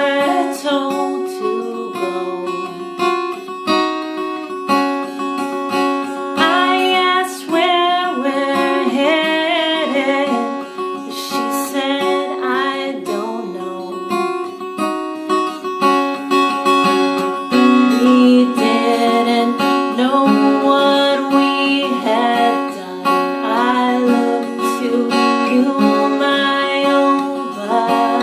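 A woman singing to her own cutaway acoustic guitar, the sung phrases coming and going over the steadily played guitar chords.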